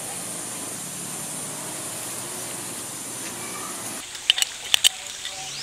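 Steady hiss of outdoor background noise, then, from about four seconds in, a handful of sharp metallic clicks as a slackline ratchet is worked by hand while the webbing is threaded through it.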